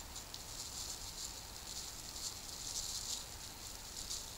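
Clear plastic bag crinkling and rustling as it is handled, a crackly rustle that goes on throughout.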